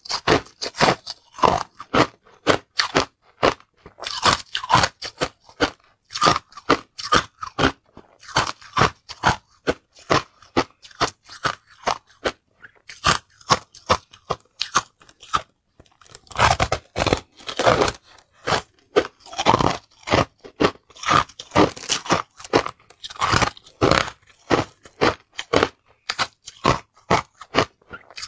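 A person biting and chewing chunks of crushed ice close to a clip-on microphone: rapid, sharp crunches several a second, with a brief pause about twelve seconds in.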